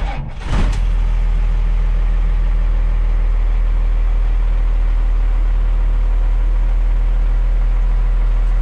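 A first-generation Cummins 5.9 L diesel running steadily after a brief louder surge in the first second.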